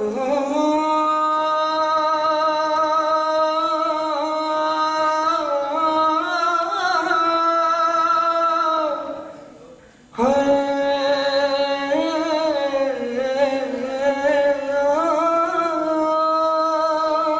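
A man singing unaccompanied into a handheld microphone, in long held notes with vibrato. One phrase fades out about nine seconds in, and a new one begins about a second later.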